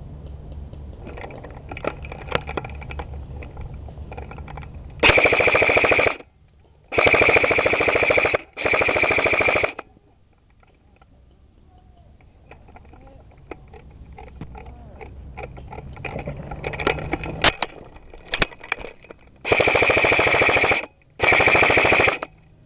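Airsoft gun firing on full auto in five bursts of rapid shots, each about a second or a second and a half long: three close together about five seconds in, two more near the end.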